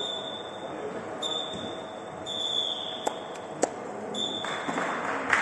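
Futsal game on an indoor court: several short high squeaks, likely players' shoes on the hall floor, four times about a second apart, with two sharp knocks of the ball being kicked about three seconds in. A rush of noise rises near the end.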